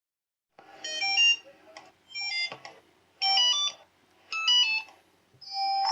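Samsung mobile phone startup and shutdown tones: short electronic jingles of a few bright notes each, four brief phrases about a second apart, with the next tune starting near the end.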